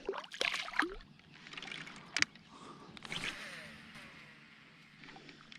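A cast with a RUNCL Svallet baitcasting reel: a few light clicks, a sharp click about two seconds in, then a faint soft whir as line pays off the spool.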